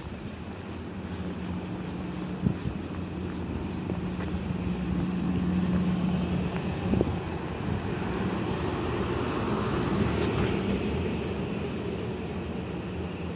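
City street traffic: a steady low hum of engines, with a vehicle passing that swells and fades about ten seconds in.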